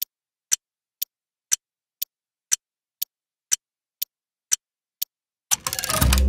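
Clock ticking on near silence, about two ticks a second, alternating louder and softer like a tick-tock. Near the end a quick run of rapid ticks gives way to a deep, steady low drone.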